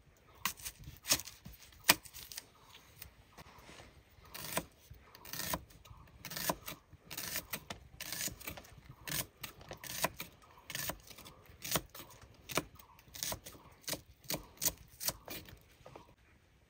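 An irregular series of sharp taps and clicks, about one or two a second, some of them louder knocks, as of objects being handled or struck.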